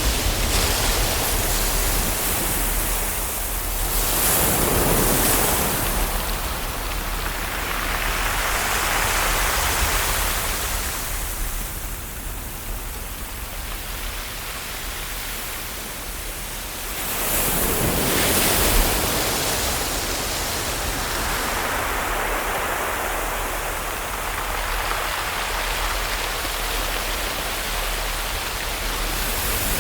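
Ocean waves washing on a shore: a steady surf hiss that swells and falls back in slow surges a few seconds apart.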